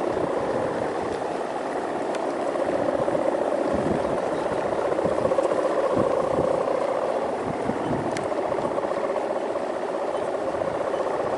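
A steady, wavering drone with rough wind buffeting underneath and a few faint clicks.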